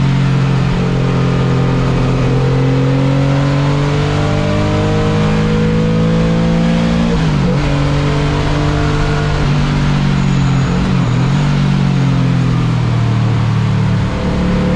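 Car engine running hard on a track lap, its pitch shifting with the throttle and dipping sharply and recovering at gear changes about seven and a half seconds in and again around ten to eleven seconds.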